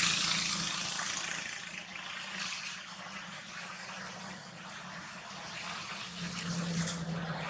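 Leaves and twigs rustling as a young macaque pulls at a low leafy branch, over a steady low hum.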